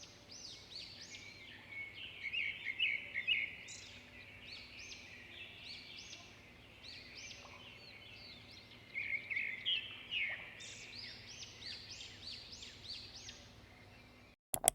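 Many birds chirping and singing at once: a dense chorus of short, overlapping high chirps. It cuts off suddenly near the end, followed by a brief click.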